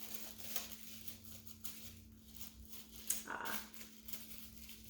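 Faint rustling and light clicks of packaging and small parts being handled while unboxing, over a steady low hum, with one brief higher-pitched sound about three seconds in.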